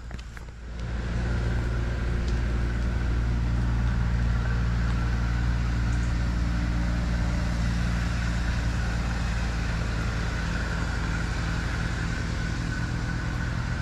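Motor vehicle engine running steadily with a low, even drone. It comes up loud about a second in.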